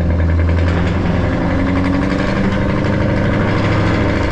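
Scania R650's V8 diesel running loud with its exhaust flap open, a deep steady rumble heard from inside the cab as the truck drives through an underpass.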